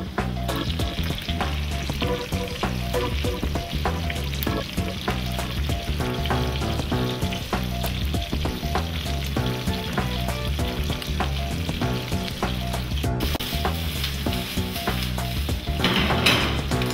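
Thin aubergine slices frying in hot olive oil in a pan: a steady sizzle full of small crackles. Near the end the sizzling surges louder for a moment.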